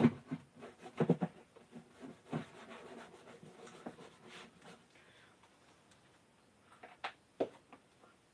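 Paintbrush strokes rubbing and scratching on the camper's cabinet and floor as it is painted, broken by irregular knocks and bumps: a cluster in the first few seconds and two sharp ones near the end.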